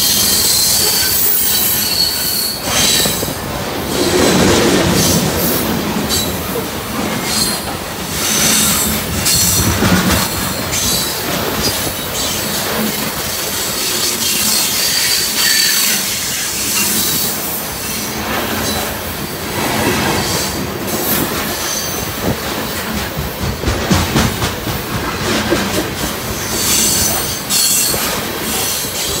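A freight train of high-sided open-top cars rolling past at close range: steel wheels running on the rails, with on-and-off high-pitched wheel squeal and scattered clicks and knocks.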